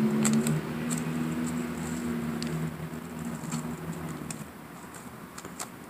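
Trading cards being handled, with light clicks and taps, over a steady low hum that fades away about four seconds in.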